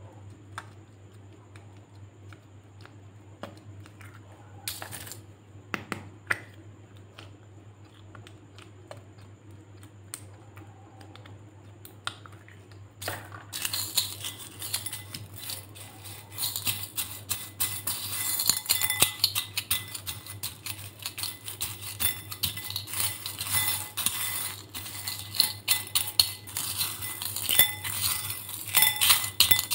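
Yellow slime and small beads squished by hand in a glass bowl: from about halfway through, a dense wet crackling with beads clinking against the glass. Before that, only scattered soft clicks as the slime is squeezed out of a plastic cup.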